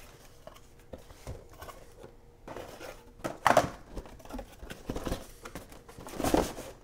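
Cardboard packaging being handled: a printed box pulled open and an inner brown cardboard box slid out and its flaps folded back, with irregular scrapes, rustles and light knocks, the loudest about halfway through and again near the end.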